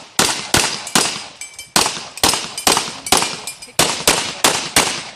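A rapid string of pistol shots, about a dozen, coming two to three a second, each sharp crack trailing off in a short echo.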